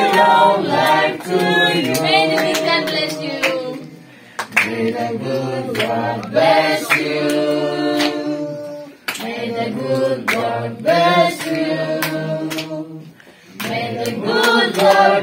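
A group of people singing together without instruments, in sung phrases with short breaks, with a few hand claps.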